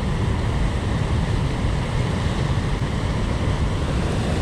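Steady rushing noise, heaviest in the low end, with no distinct events and no change in level.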